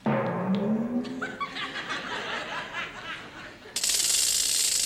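Studio audience laughing. Near the end, a loud hissing noise cuts in for about a second and stops abruptly.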